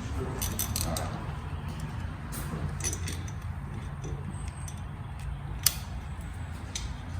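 Light metallic clicks and scraping of a steel snap ring being pried out of its groove in an automatic transmission's overdrive section, with one sharp click a little past halfway through. A low steady hum runs underneath.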